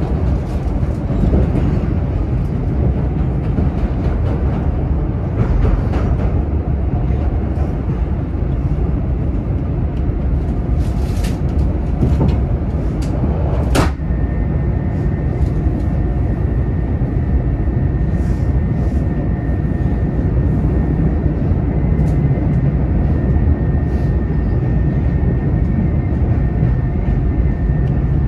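Chicago 'L' rapid-transit car heard from inside while running: a steady rumble and rattle with scattered clicks of the wheels over the rail joints. About halfway through, a sharp click is followed by a steady high whine that holds to the end.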